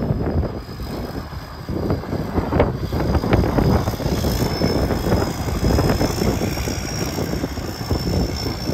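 Komatsu tracked excavator's diesel engine running as the upper structure swings around, with a thin high steady whine and a few short knocks.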